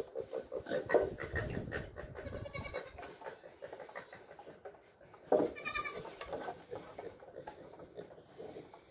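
Nigerian dwarf goat kids bleating: two high, quavering bleats, one a little over two seconds in and a louder one about five and a half seconds in.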